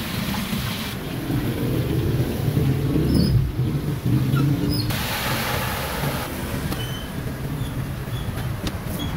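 Street traffic: motorbike and car engines running past close by, a steady low rumble that swells loudest from about two to four seconds in.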